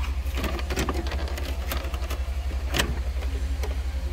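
Sharp clicks and rattles of plastic dash trim and wiring being handled as the glove box assembly is worked loose. Underneath them runs a steady, low, rapidly pulsing hum.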